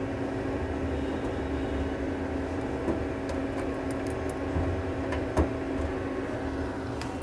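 Steady hum of a running desktop computer's fans, with a few light clicks and knocks as a cable connector is handled.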